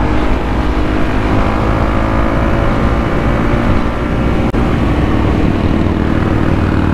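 Motorcycle engine running steadily at cruising speed, with wind buffeting on the microphone.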